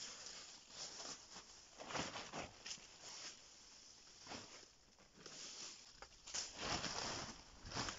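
Dry fallen leaves rustling and crunching as they are grabbed by hand and stuffed into a plastic tarp sack, with footsteps through the leaf litter. The rustling comes in irregular bursts and is loudest near the end.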